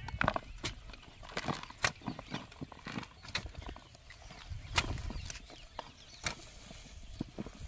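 Hand hoes chopping and scraping into a heap of cow dung and knocking against a basin as the manure is pulled in: irregular scrapes and knocks, several of them sharp.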